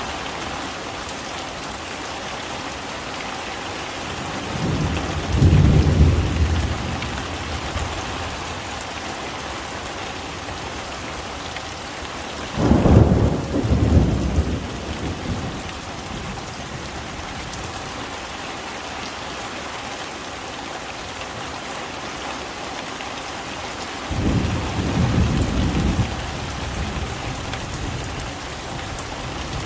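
Heavy rain falling steadily, with three rolls of thunder, each lasting two to three seconds: about five seconds in, around thirteen seconds in (the loudest), and near twenty-five seconds in.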